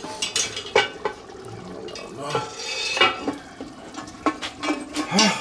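Heavy cast-iron lid of a Dutch oven being set back on the pot with a metal lid lifter: a series of separate sharp metal clanks and knocks as the lid settles and the lifter rattles against it.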